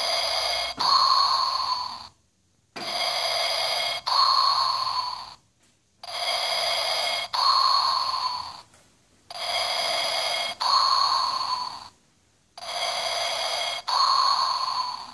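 Darth Vader breathing sound from a costume's electronic breathing device: a hissing mechanical intake and exhale, the exhale the louder, repeating evenly about every three seconds, five times, with silence between breaths.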